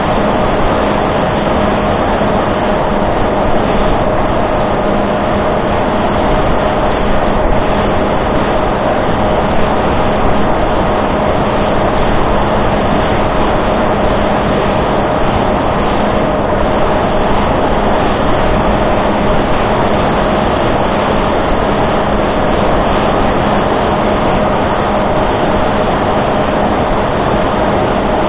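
A Reptile S800 flying wing's electric motor and propeller drone steadily in flight, heard up close from the onboard camera, with a constant rush of air over it. Two steady tones, one low and one in the middle, sit over the noise, and the pitch holds without rising or falling.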